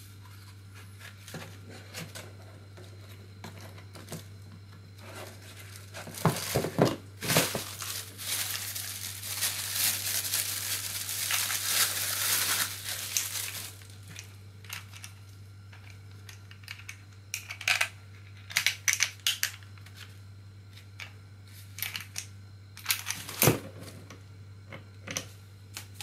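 Clear plastic packaging bag crinkling and tearing as bike fenders are pulled out of it: first a few sharp crackles, then a long stretch of rustling, then scattered short crinkles near the end.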